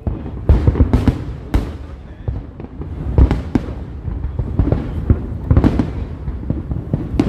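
Fireworks display: aerial shells bursting one after another, sharp bangs with deep rumbling booms several times a second.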